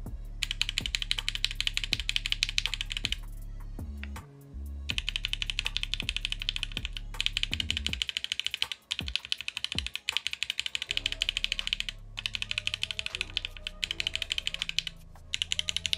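Fast typing on a Vertex Angle TKL mechanical keyboard with Gateron Oil King linear switches on an FR4 plate, fitted with PBT keycaps: a steady run of key clacks with two short pauses, a little clackier and louder with the PBT caps.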